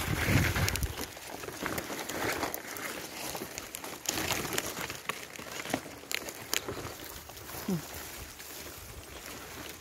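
Wind buffeting the phone's microphone, heaviest in the first second, with rustling and scraping as leaves and hands brush the phone.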